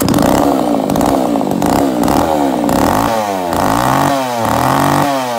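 Used Makita two-stroke chainsaw running after being primed and started. Its throttle is revved up and down repeatedly, about once a second in the second half, showing that it runs.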